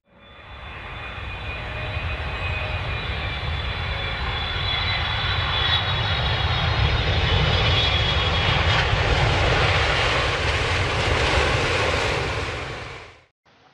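Logo-intro sound effect: a jet-like rumble and rush that swells in over about two seconds, holds steady with faint high tones drifting slowly down, and cuts off sharply near the end.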